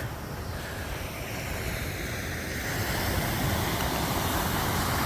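Ocean surf breaking and washing onto a sandy beach, a steady rush that swells gradually, with some wind on the microphone.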